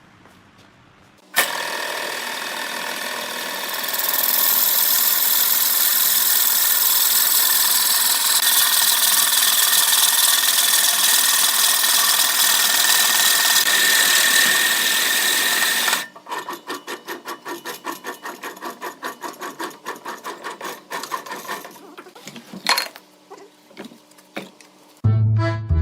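Wood on a spinning lathe being cut or sanded: a loud, steady scraping hiss that starts about a second in, grows louder a few seconds later and stops suddenly. It is followed by a run of quick, even ticks, about three or four a second, that peter out.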